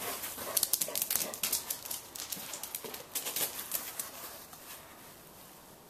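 Two otterhounds playing together: quick scuffling and pattering noises with a few brief dog vocal sounds, dying down after about four seconds.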